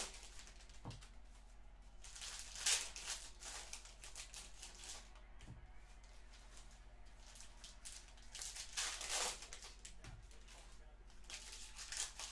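Plastic trading-card packaging crinkling and tearing in several short bursts, about two, eight and eleven seconds in, as a hobby box and its packs are opened.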